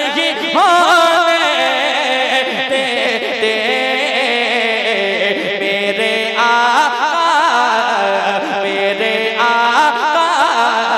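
Male naat reciter singing into a microphone, drawing out long, ornamented held notes with wavering turns in the melody.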